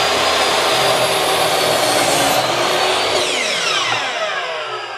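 Hitachi compact miter saw running at full speed with a high steady whine as its blade cuts straight down through a 2x4. About three seconds in the motor switches off and winds down, its whine falling in pitch.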